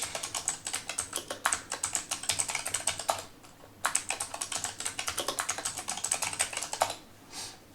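Fast typing on a computer keyboard: two runs of quick key clicks with a short pause a little past three seconds in. It is an encryption passphrase being typed and then typed again to confirm it.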